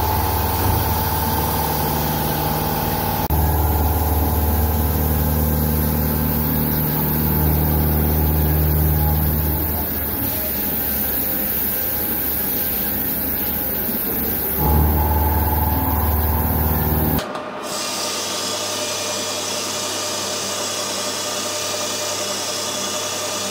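CNC milling machine running, a face mill cutting out the worn holes in a forklift linkage, its low hum stepping louder and softer a few times as the cut goes on. About seventeen seconds in it gives way suddenly to a quieter, steady metal lathe turning a nylon bar.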